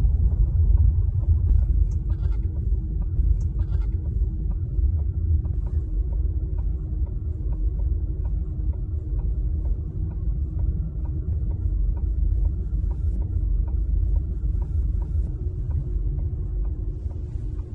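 Steady low rumble of car road and tyre noise inside the cabin while driving on packed snow, with a faint steady hum.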